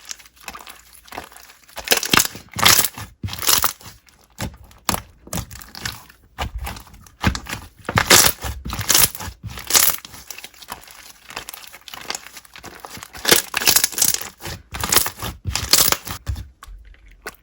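Slime being squeezed, pressed and stretched by hand, making irregular crackling, crinkling bursts, with the busiest stretches a couple of seconds in, around the middle and in the last third.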